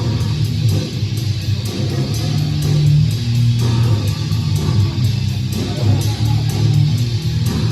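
Loud live goregrind: heavily distorted electric guitar and bass riffing, with steady drum and cymbal hits.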